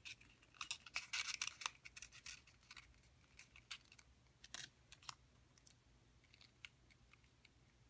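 Faint crackling and rustling of a rolled paper tube being handled and pressed shut with clear tape. The small crackles come thick over the first three seconds, then thin out to scattered taps and rubs.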